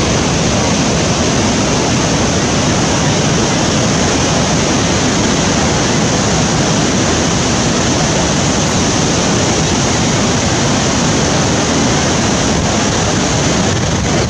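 Niagara Falls pouring down close by: a loud, steady rush of falling water.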